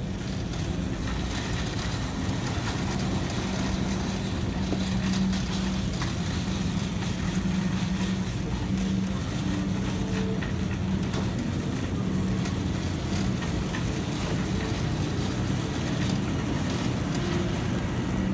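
Metal wire shopping cart being pushed over a tiled store floor: the wheels rumble steadily while the basket and its load rattle with scattered small clicks.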